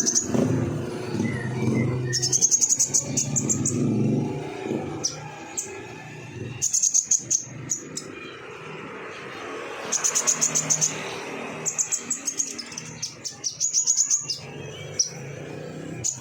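Olive-backed sunbird (kolibri ninja) singing: repeated bursts of rapid, high-pitched trilled notes, each about a second long, several times over. A low background rumble sits under the first few seconds.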